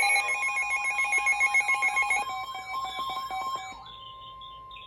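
Emergency Alert System alert tone coming through a radio receiver: steady, piercing tones with a warbling edge. The tones drop in level about two seconds in and fade out by about four seconds, and a single faint tone lingers a moment longer.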